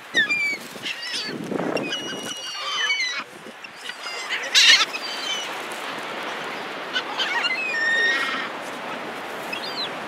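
Seagulls crying and squawking, many short high calls overlapping, with one louder burst about halfway through, as the flock crowds in to be hand-fed.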